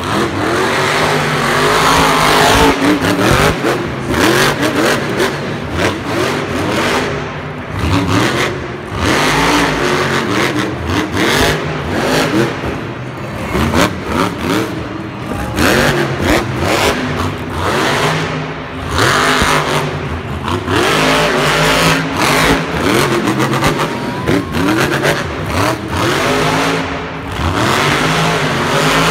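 Grave Digger monster truck's supercharged V8 engine revving hard over and over, pitch climbing and dropping with each burst of throttle, as the truck drives, wheelies and jumps on the arena dirt.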